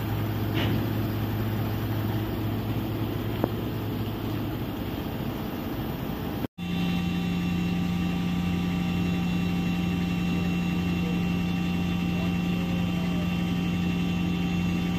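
The diesel engines of a Hitachi EX5500-5 mining excavator running at a steady idle. About six and a half seconds in, the sound drops out for an instant and comes back with a higher, stronger engine note.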